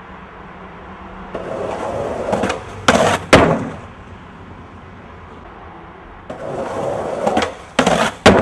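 Skateboard wheels rolling, growing louder, then two sharp clacks of the board. This happens twice, about four seconds apart.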